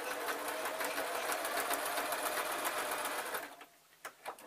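Singer domestic electric sewing machine running a straight stitch at steady speed, a fast even chatter of needle strokes that stops suddenly about three-quarters of the way through, followed by a few separate clicks.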